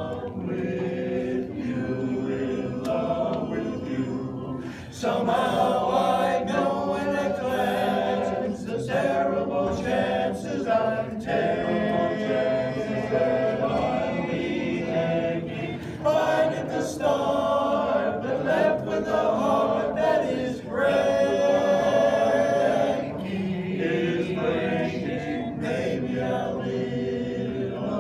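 A men's chorus singing a cappella in close harmony, with no instruments. The chords swell louder and are held at several points.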